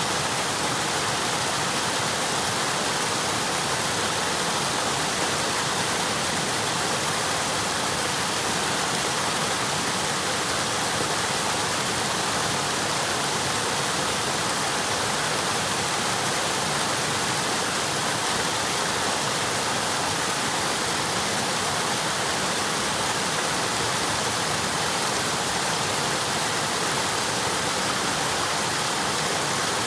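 River water flowing and rushing steadily, a constant even roar of moving water.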